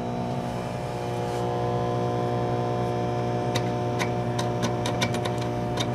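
Magnetic fluorescent-lamp ballast in a homemade UV light table humming loudly and steadily, a mains hum with many overtones, which the owner puts down to one of the three UV tubes not having lit yet. A run of light clicks starts a little past halfway.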